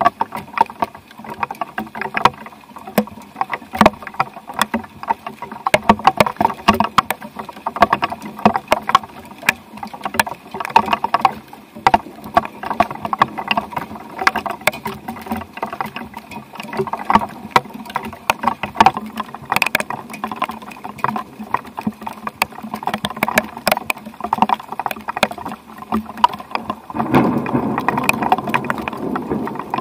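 Thunderstorm rain falling, with many sharp drops tapping and ticking close to the microphone over a steady hiss of rain. Near the end it thickens into a heavier, fuller wash.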